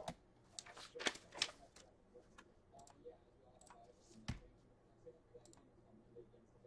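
Faint, irregular clicks and taps of a computer keyboard and mouse being used, with a single louder low knock about four seconds in.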